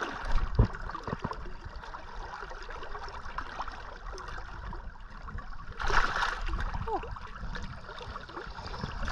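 River current flowing and lapping close around the wading angler, with a brief louder splash about six seconds in as the shad drops back into the water.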